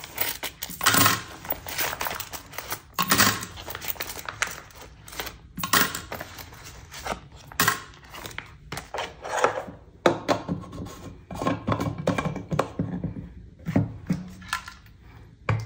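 Hands handling a cash budget binder: clear plastic pouches and paper crinkling and rustling, with many short clicks, knocks and a few thunks.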